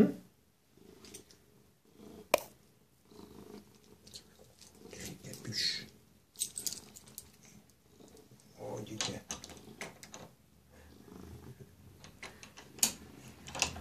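Domestic tabby cat purring close to the microphone, the purr coming and going in waves. Two sharp clicks stand out, about two seconds in and near the end.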